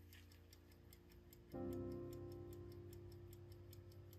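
A 19-jewel Elgin B.W. Raymond pocket watch ticking faintly and evenly at about five ticks a second, under soft background music. The music's sustained chord changes and gets louder about one and a half seconds in.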